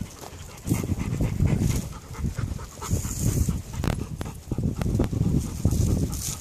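Dog panting in rapid breaths close to the microphone, with a few sharp clicks of footsteps on rock.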